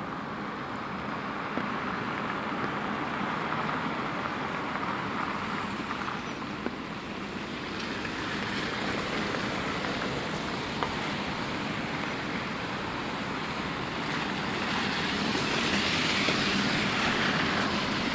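Traffic on a rain-wet city street: tyres hissing on the wet road, a wash of noise that swells as vehicles pass, loudest near the end.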